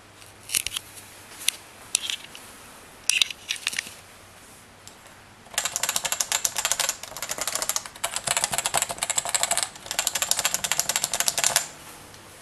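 Realforce Topre keyboard being typed on: a few separate keystrokes and short clusters in the first four seconds, then fast continuous typing in three long runs of clattering keystrokes that stop shortly before the end.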